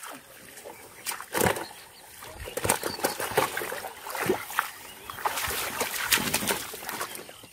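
Hands splashing and sloshing through shallow muddy floodwater and grass, grabbing for catfish: a run of irregular wet splashes.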